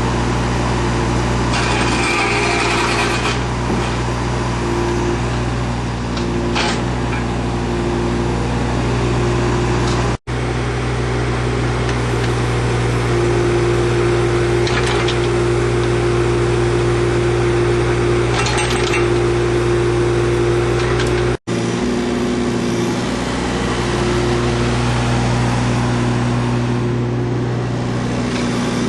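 JCB 8017 mini excavator's diesel engine running steadily, with a few short bursts of higher-pitched noise now and then. The sound cuts out for an instant twice.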